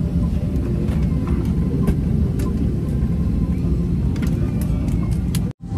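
Steady low rumble inside an airliner cabin, with scattered light clicks and knocks. The sound cuts out for a moment near the end.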